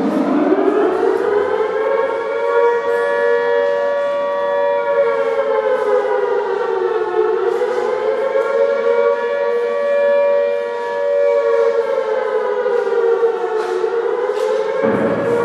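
A siren rising from a low pitch into a steady wail, its pitch sagging and climbing back twice, about seven seconds apart, in the manner of an air-raid siren.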